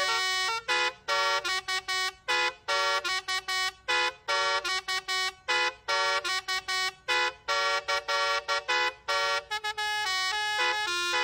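Telolet basuri musical bus horn playing a tune: a rapid run of short and held horn notes, several pitches sounding together, each cutting on and off abruptly.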